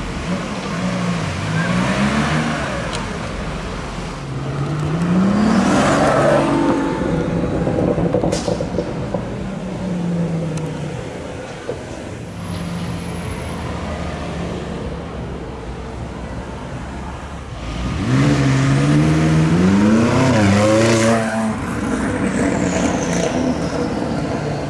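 Supercar engines revving and accelerating away, the pitch climbing, dropping at each gear change and climbing again. The loudest pulls come about five seconds in and from about eighteen to twenty-one seconds in.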